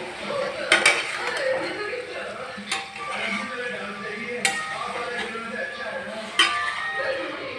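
A steel spoon stirring and scraping chicken pieces in masala around a metal kadhai, with several sharp clanks of the spoon against the pan's side as the chicken is fried.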